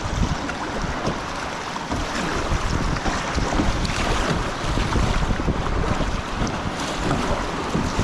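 Rushing river water splashing around a kayak running a rough stretch of river, with wind buffeting the microphone in low gusts.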